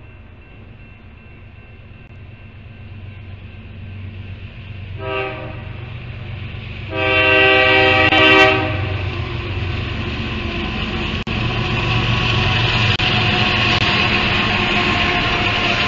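Freight train led by a BNSF diesel locomotive sounding its air horn for a grade crossing: a short blast about five seconds in, then a longer, louder blast as the locomotive reaches the crossing, the closing notes of the standard crossing signal. The engine's rumble grows as it approaches, and after the horn the freight cars roll by with steady wheel and rail noise.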